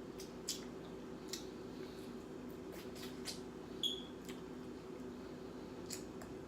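Eating sounds from a mouthful of fried chicken: scattered short, wet clicks and smacks of chewing, with one brief high squeak about four seconds in, over a steady low hum.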